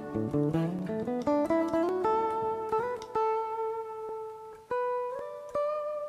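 Clean electric guitar through a Harley Benton American TrueTone pedal with the drive at zero: a run of single picked notes climbing in pitch, then a few long held notes with slides up between them.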